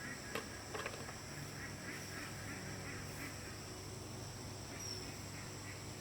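Birds giving a run of short repeated calls over a steady high insect drone, with a couple of sharp clicks about half a second in.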